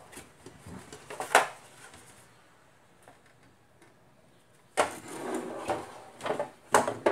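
Hard plastic speaker cabinet from a Semp plasma TV being handled and pulled apart on a bench, its screws already out: a few knocks and clacks, the loudest about a second and a half in, then after a quiet spell a sudden clack and a run of plastic clattering and scraping near the end.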